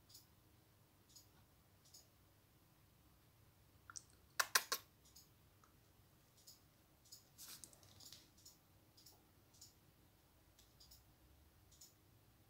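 Faint scattered clicks and taps, with a short cluster of sharper clicks about four and a half seconds in.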